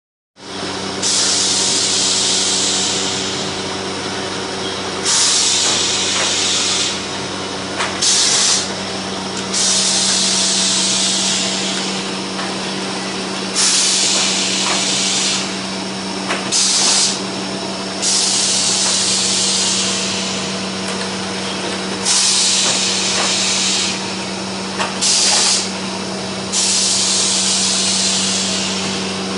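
Plastic vacuum forming machine running: a steady motor hum under loud bursts of air hissing that repeat about every four seconds, long hisses with short puffs between them.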